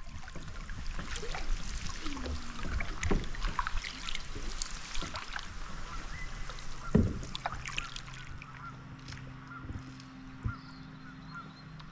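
Canoe paddling on calm water, with irregular paddle strokes and splashes, and birds calling now and then.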